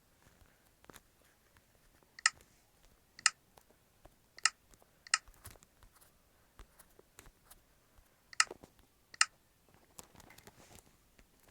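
Six short, sharp clicks at uneven spacing, with faint rustling between them.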